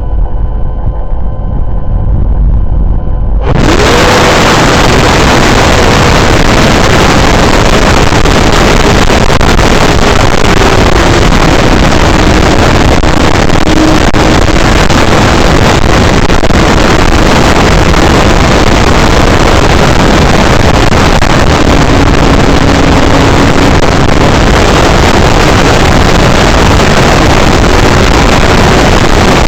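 Electric motor and propeller of an E-flite Draco RC plane whining steadily. About three and a half seconds in, loud wind buffeting on the microphone swamps it, the motor whine still faintly heard underneath and shifting in pitch as the throttle changes.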